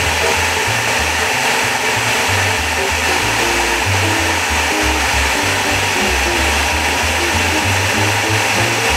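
Food processor motor running steadily under load, blending raw cauliflower into a creamy mash, with background music underneath.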